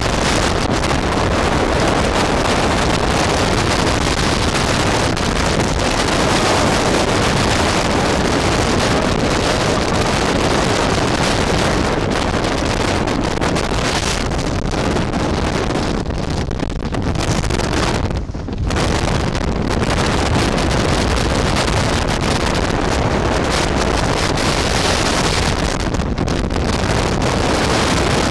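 Gale-force wind of about 95 km/h blasting straight onto the microphone in a mountain-summit blizzard: a loud, continuous rushing roar of wind noise, easing only for a moment about two-thirds of the way through.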